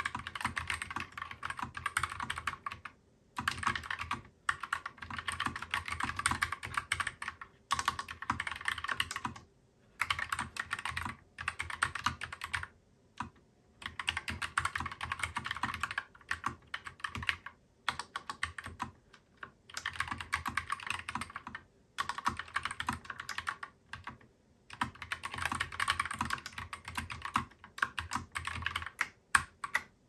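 Typing on a Wombat Coleus mechanical keyboard: fast runs of key clicks in bursts of a few seconds, broken by short pauses, stopping near the end.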